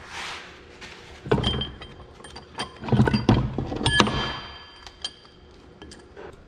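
Heavy steel parts of a tractor axle differential clunking and clinking as the carrier, with its ring gear and tapered bearings, is worked loose and lifted out of its cast-iron housing. A string of knocks begins about a second in; the loudest comes near the middle and leaves a metallic ring hanging for about a second.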